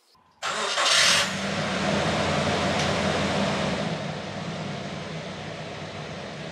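Nissan pickup truck's engine coming in suddenly about half a second in, loudest for the first second as it starts, then settling into a steady idle.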